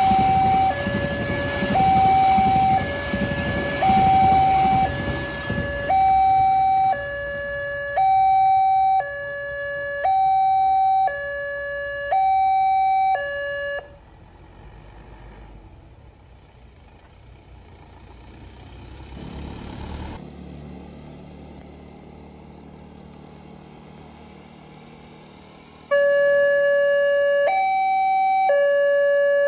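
Railway level-crossing warning alarm sounding a loud electronic two-tone signal, alternating high and low about once a second, while a passenger train rumbles past; the train noise fades over the first few seconds. The alarm stops about halfway through, leaving low traffic and ambient noise. It starts again near the end as the crossing is closed for the next train.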